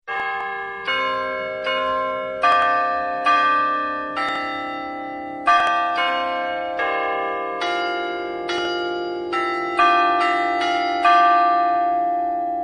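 Carillon bells of the Garrison Church (Garnisonkirche) playing a slow melody. Single bell notes are struck about once a second, and each rings on beneath the next.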